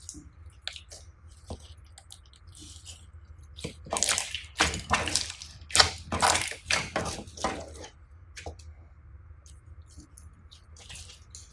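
Slime being squished and kneaded by hand: wet squelching and sticky popping, with scattered small clicks. It is loudest and busiest for a few seconds in the middle, then thins back to occasional clicks.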